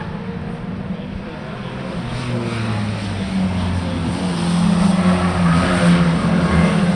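A large engine running with a steady low drone that grows louder over the last few seconds.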